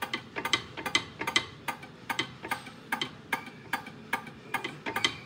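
Hand pump of a RIDGID hydraulic pipe bender being pumped rapidly, its handle and mechanism clicking metallically about four times a second as the ram bends a half-inch mild steel pipe towards 90 degrees.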